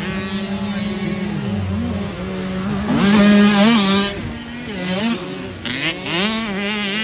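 Several 50cc mini motocross bikes racing, their small engines revving up and down in a high buzz. The sound is loudest about three seconds in, as one bike rides close past.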